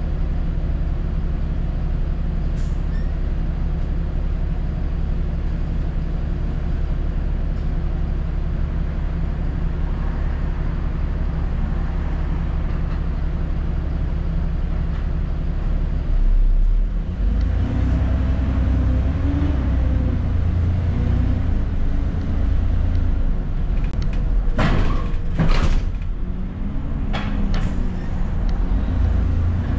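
Alexander Dennis Enviro400 double-decker bus heard from inside: the diesel engine runs steadily and low, then about halfway through it grows louder and more uneven as it works harder. Near the end come two short, sharp hisses of compressed air from the bus's air system.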